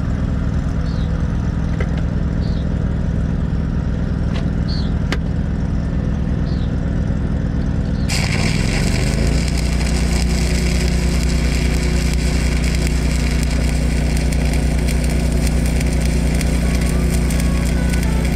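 An engine-driven welding machine runs steadily. About eight seconds in, a 7018 stick electrode strikes an arc on the steel axle and the steady crackle and hiss of stick welding begins. The welder's engine rises in pitch as it takes up the load.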